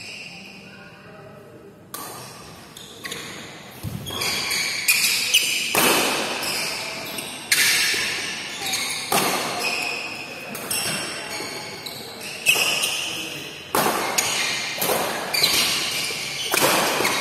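Badminton rally: rackets striking a shuttlecock back and forth, a sharp crack about every second or so, each hit echoing around a large hall. The first couple of seconds are quieter, before the rally gets going.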